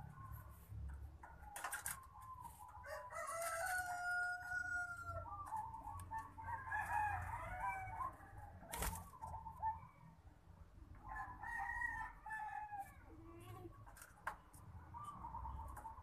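Rooster crowing several times, long pitched calls with pauses between them, with a sharp click about nine seconds in.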